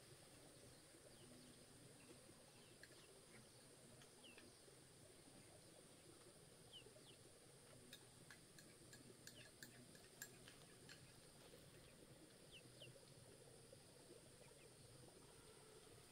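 Near silence: faint outdoor ambience with a few short, faint bird chirps scattered through it.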